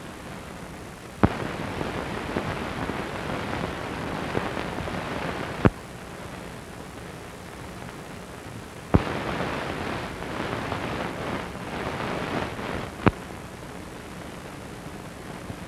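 Old film soundtrack noise with no programme sound: a steady background hiss, and twice a louder stretch of crackly hiss that starts and ends with a sharp pop.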